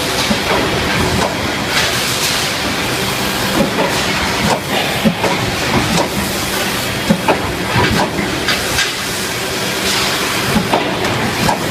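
Drop forging shop machinery running: a steady mechanical roar with irregular sharp metallic clanks and knocks, and bursts of hiss.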